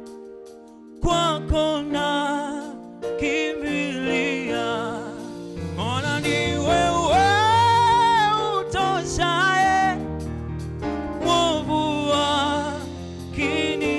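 A vocal group singing a Swahili gospel hymn over instrumental accompaniment with a bass line. The music drops briefly just before a second in, then the singing comes back in.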